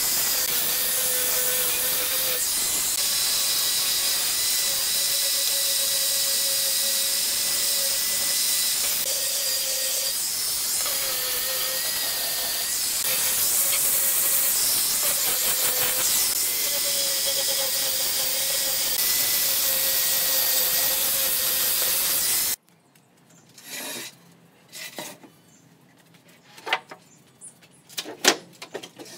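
Handheld electric angle grinder running steadily against pallet wood, its motor whine holding a nearly constant pitch, then cutting off abruptly about 22 seconds in. A few sharp wooden knocks and clatters follow near the end.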